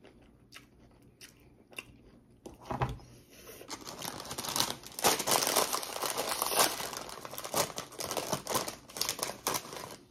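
Close-miked crinkling and crunching as a burrito bowl is dug into: a few light clicks and a knock, then about six seconds of dense, loud crackling.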